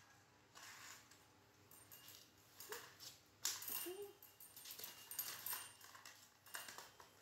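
A baby monkey's short, soft whimpering calls, two of them a few seconds in, among light rustling and clatter as a plastic toy car is pushed across a floor mat.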